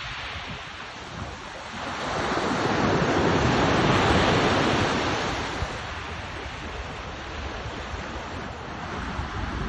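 Sea waves washing in, one surge swelling to its loudest about four seconds in and then easing off, with wind buffeting the microphone.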